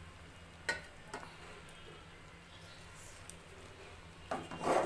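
Low steady hum with a couple of faint clicks about a second in and a short scraping rustle near the end.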